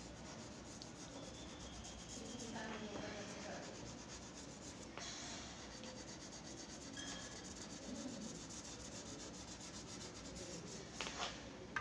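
Charcoal stick rubbing and scratching faintly across drawing paper as dark shading is laid in, with a couple of small knocks near the end.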